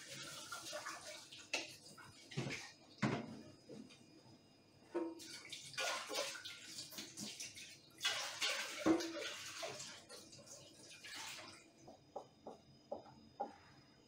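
Kitchen tap running into a stainless steel sink in three spells as dishes are washed, with clinks and knocks of crockery and pots in the sink. Near the end come a few light taps and clicks.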